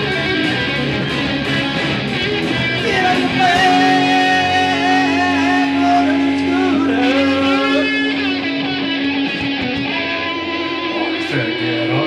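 Live rock band playing: electric guitars over bass guitar and drums, with a long held note that wavers and bends in pitch across the middle.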